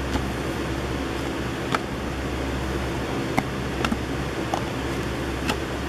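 Steady fan-like hum and hiss, with about half a dozen short, sharp clicks of cardboard trading cards being handled and shuffled in a stack.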